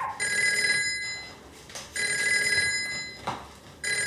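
Red corded landline telephone ringing with an electronic ring of two steady high tones. It rings about three times, each ring about a second long and repeating roughly every two seconds, with a couple of soft thuds between rings.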